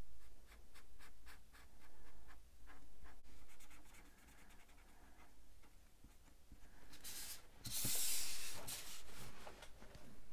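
Fibre-tip felt pen (Staedtler Triplus Color) colouring on planner paper: quick, rapid scratching strokes back and forth, a few a second. About seven seconds in comes a louder rustle of the paper being shifted across the desk.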